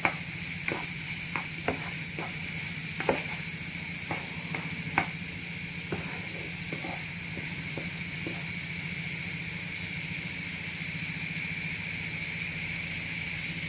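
Sliced onion, chilli and garlic sizzling steadily in hot oil in a frying pan, stirred with a wooden spatula that taps the pan a dozen or so times during the first eight seconds or so.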